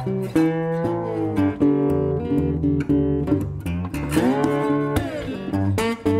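Background guitar music: a plucked guitar playing, some notes sliding up or down in pitch, over low bass notes that change every second or so.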